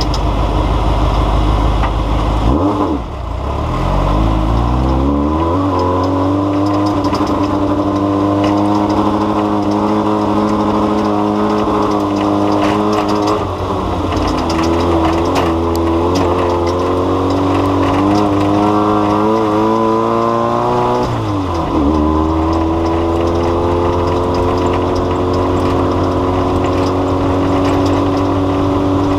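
An engine running steadily, its pitch dipping and climbing back a few times. It rises about 18 seconds in, drops suddenly a little after 21 seconds, then slowly creeps up again.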